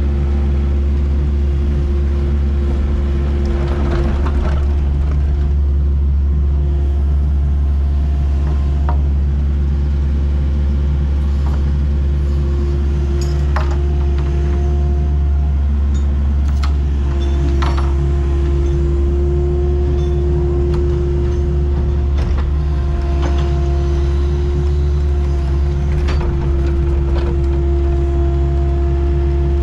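Excavator's diesel engine running steadily under load, with a whine from the hydraulics that shifts in pitch as the arm and bucket work, and a few short knocks.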